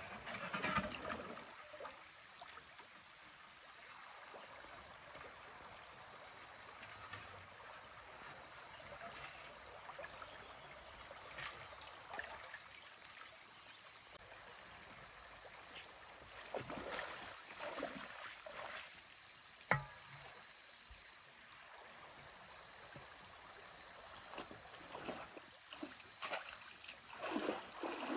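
Water splashing and sloshing in bursts as a person wades and works with her hands in a shallow stream, over the steady trickle of the flowing water. A single sharp knock sounds about two-thirds of the way through, and the splashing grows near the end as she walks through the water.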